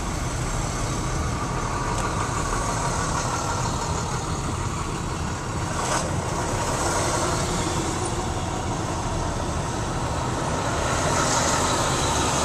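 Steady engine noise of school buses idling in a bus compound, heard from inside a slowly moving vehicle, with a single sharp click about six seconds in.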